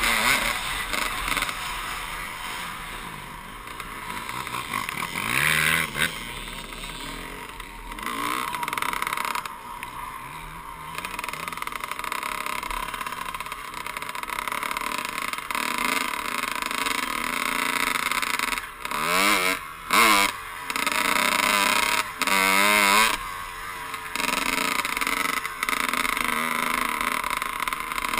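Dirt bike engine running under way, the revs rising and falling as the rider works the throttle, with sharp rev swings about two-thirds of the way through. It is heard from a helmet-mounted camera.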